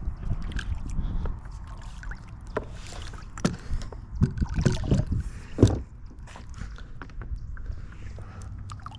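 Handling noise from a small channel catfish being landed and unhooked: scattered knocks and bumps over a steady low rumble, clustered in the middle, the loudest knock a little past halfway.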